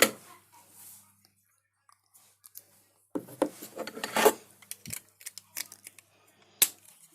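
Plastic Lego Bionicle parts being handled: a few sharp clicks, a quiet pause, then a busy stretch of clicking and rattling for about two seconds, followed by scattered clicks and one sharp snap near the end.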